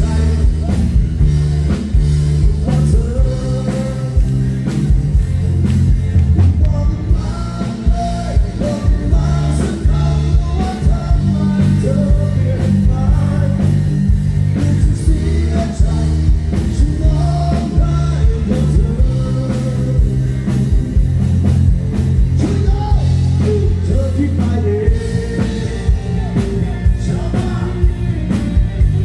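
Live rock band playing loudly through a stage PA: a male singer over electric bass, guitar and drum kit.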